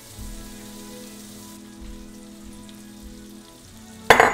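Butter melting and sizzling in a hot frying pan with browned sausage, a steady fine crackling hiss. A brief loud noise breaks in near the end.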